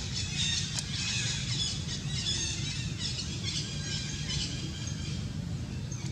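Repeated high-pitched animal squeals and chirps, many overlapping and sliding in pitch, thinning out after about four seconds, over a steady low rumble.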